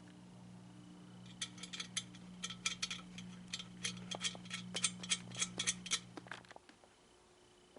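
Rapid run of ratcheting clicks, several a second, as a ratchet tool tightens the bolts of a steel trapeze bar frame. A faint low hum runs underneath and stops near the end.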